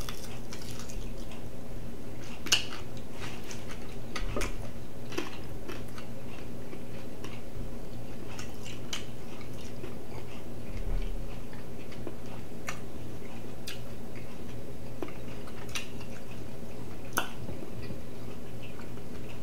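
A person biting into and chewing a chicken wing in hot sauce: scattered small clicks and mouth sounds over a steady low hum.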